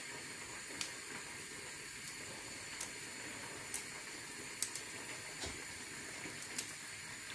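Broccoli florets being pulled and snapped apart by hand, giving faint scattered snaps about once a second over a steady hiss.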